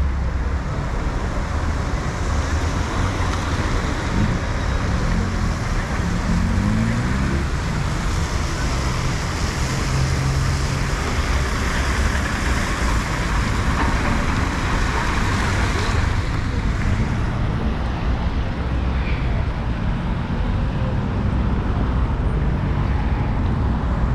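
City street traffic: vehicle engines running and passing, over a steady hiss that thins out about sixteen seconds in.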